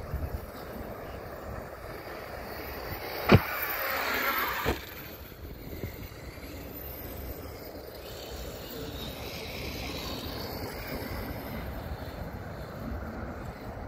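Arrma Kraton 8S RC truck's brushless motor and tyres running across sand. About three seconds in comes a sharp loud knock, then a loud rush of motor whine that ends in a second knock about a second and a half later, fitting a launch off the ramp and a hard landing. A fainter pass of motor whine follows later, over light wind on the microphone.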